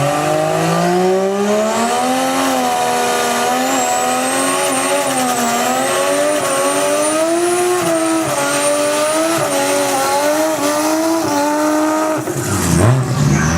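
Turbocharged RB straight-six in a VL Commodore at full throttle down a drag strip. The revs climb, drop briefly at each gear shift and climb again, with a high whistle running above the engine. About 12 seconds in the revs fall away as the run ends.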